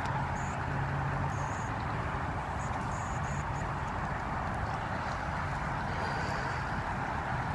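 Steady rush of road traffic under and near a highway bridge, with a low engine drone that fades in and out. A few short, faint high chirps come in the first few seconds.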